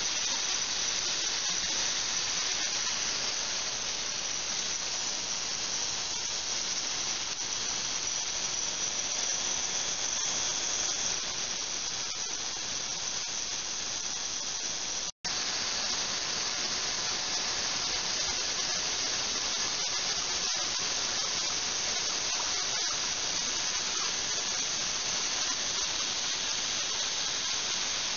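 Water pouring from a hose through a glass beaker into a running ultrasonic cleaning tank: a steady high hiss of rushing, splashing water and ultrasonic agitation. It cuts out for an instant about halfway through.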